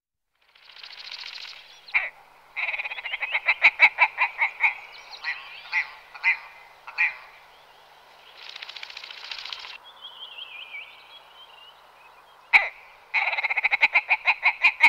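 Willow ptarmigan calling: a rapid rattling series of pulsed notes starting about two and a half seconds in, a few single notes after it, and a second rapid series near the end, each series preceded by a sharp click.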